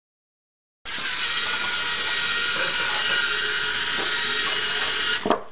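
Silence for almost a second, then a LEGO Mindstorms EV3 robot's motors whirring steadily as it drives, stopping abruptly near the end.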